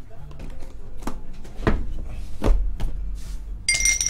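A plastic 20-sided die being handled and rolled: a few light knocks, then near the end a bright, ringing clatter as the die spins and rattles inside a clear plastic cup.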